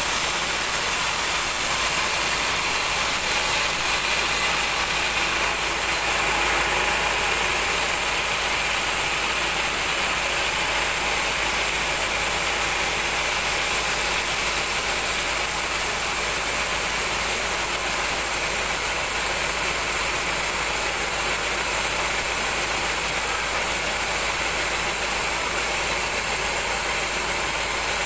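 A 36-inch band sawmill running steadily: an even, unbroken mechanical noise with a constant high whine, its blade sawing through a large mahogany log.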